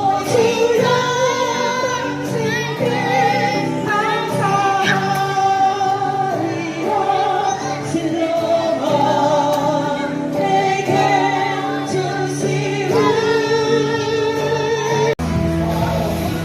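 Worship song sung by voices with musical accompaniment. It cuts abruptly to a different passage near the end.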